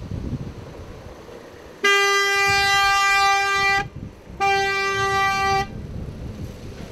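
A vehicle horn sounded twice with a steady single note: a long blast of about two seconds, then a shorter one of about a second.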